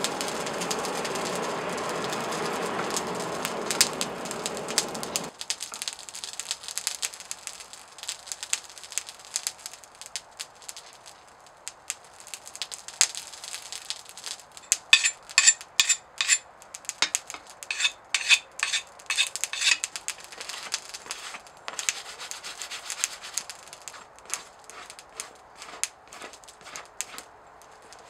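Forge fire throwing sparks with a steady rushing noise that cuts off suddenly about five seconds in. Then a red-hot leaf-spring steel axe head is quenched in a pot of water, crackling and popping in quick clusters about midway as the water flashes to steam during hardening.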